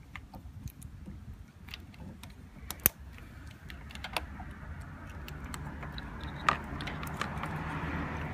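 Plastic connectors and wiring of an HID headlight conversion kit being handled and plugged together: scattered light clicks and taps, with a sharp snap about three seconds in and another about six and a half seconds in. A low steady hum comes in about five seconds in.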